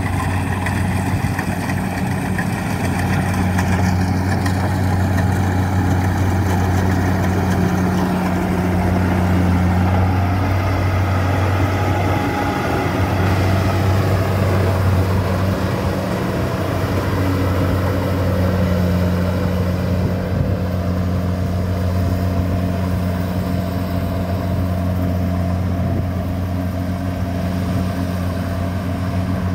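Kubota DC-70 combine harvester's diesel engine running steadily under load as it cuts and threshes standing rice, a constant low hum with machinery noise above it.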